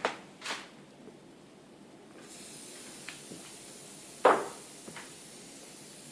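Several short knocks and clicks of tools and small objects being handled and set down. The loudest comes about four seconds in. A faint steady hiss begins about two seconds in.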